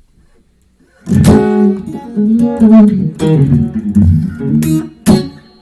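Electric guitar, a '60s Stratocaster, played through a Fender DeVille 4x10 amp with a Dumble-style 'steel string' drive. Clean-to-edgy tone. It starts about a second in with a few short melodic phrases and chords, separated by brief gaps.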